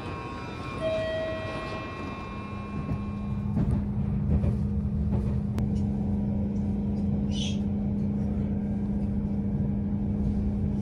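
Steady rumble of a Meitetsu μSKY (2000 series) airport express running at speed, heard inside the carriage, with a constant low hum. It is preceded over the first few seconds by a few quieter held tones.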